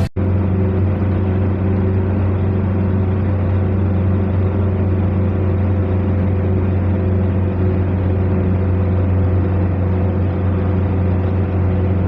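Steady low drone of a running vehicle, unchanging throughout, with a faint constant tone above it.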